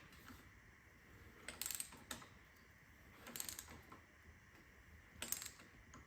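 Socket ratchet wrench clicking in three short bursts as cylinder head bolts are turned down in sequence.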